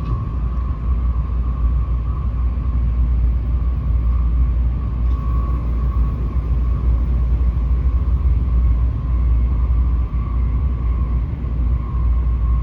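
Tokaido Shinkansen train running, heard from inside the passenger car: a steady deep rumble with a faint constant whine above it.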